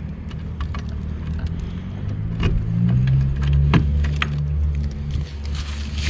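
Keys jangling and clicking in a shed door's T-handle lock as it is unlocked and the door opened, with a few sharp clicks from about two seconds in. A steady low engine hum runs underneath and rises slightly in pitch midway.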